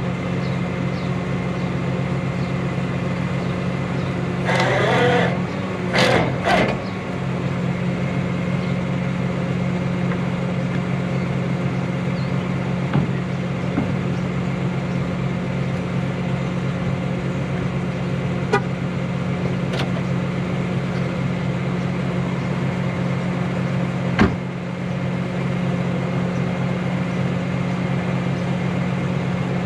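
Rollback tow truck's engine running at a steady drone, with a few short clicks and a brief rushing burst of noise about five seconds in.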